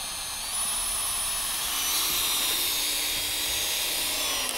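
Drill/driver running steadily under load, a high-pitched motor whine, as it drives a screw into the garage-door post.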